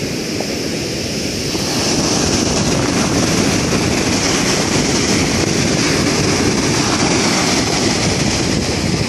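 Rough sea surf breaking and foaming up the sand at the water's edge: a loud, steady rush that swells about two seconds in.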